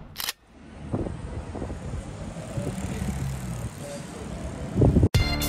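Town street ambience: a steady low hum of road traffic, opening with a very short hiss. Strummed guitar music comes in near the end.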